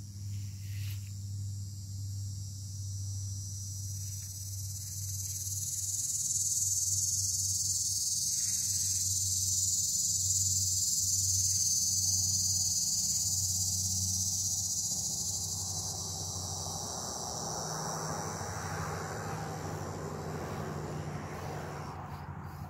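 Insects droning in the trees: a high, steady buzz that swells louder in the middle and eases off again. Under it runs a low steady hum, and in the second half a broad rushing noise builds up and then fades near the end.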